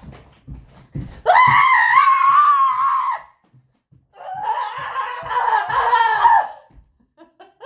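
A woman letting out two long, loud screams, one after the other, with a series of dull thumps underneath as she jumps and flails about. The screams are a deliberate release of pent-up tension.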